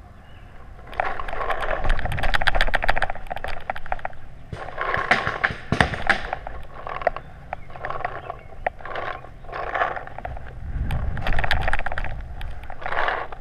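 A paintball player running between bunkers over grass, heard from a camera worn on the body: footfalls with gear and clothing rattling and rustling. A dense clatter of rapid clicks comes in the first few seconds, then shorter bursts of rustling about once a second.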